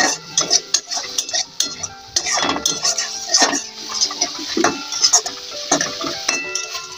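Metal spatula scraping and clinking against a metal kadai in irregular strokes, stirring a mustard-and-green-chilli paste in hot oil to cook off its water.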